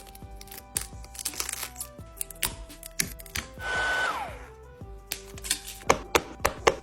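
Background music over a run of sharp clicks and taps, with a short whirring burst about halfway through whose pitch holds and then falls away as it stops.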